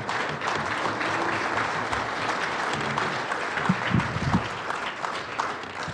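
Audience applauding: steady clapping from a seated crowd, easing off slightly near the end.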